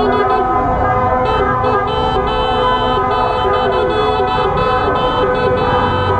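Many car horns honking at once in a street celebration. Several horns are held steady and overlap, while others sound in short repeated toots.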